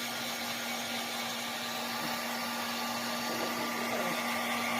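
Hand-held hair dryer running steadily, a constant blowing hiss with a low hum.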